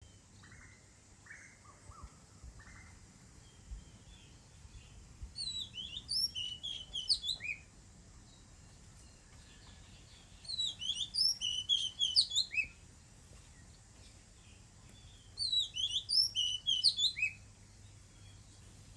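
Oriental magpie-robin singing: three phrases of varied, high whistled notes, each about two seconds long, with a few seconds' pause between them.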